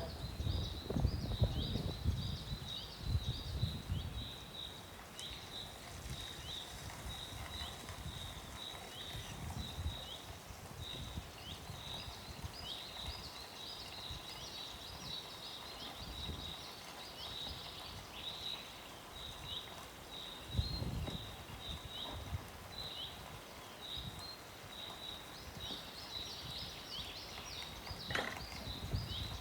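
Birds chirping: a steady stream of short, high, falling chirps, several a second, with low rumbles in the first few seconds and again about two-thirds of the way through.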